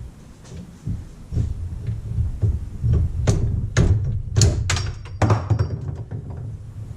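Knocks and clunks of a car dashboard being worked loose and pulled apart, with a cluster of sharp knocks in quick succession about halfway through, over a low throbbing hum.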